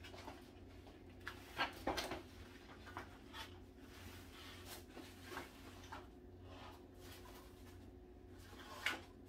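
Faint scattered light knocks and clicks over a steady low hum.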